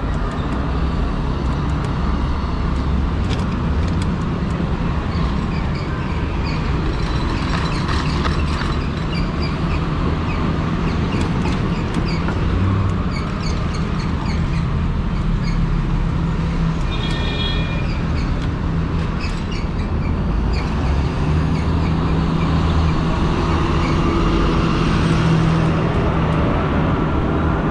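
Steady riding noise from a fat-tire e-bike on the road: a low rumble of tyre hum and wind on the microphone, with a short high-pitched tone about two-thirds of the way through.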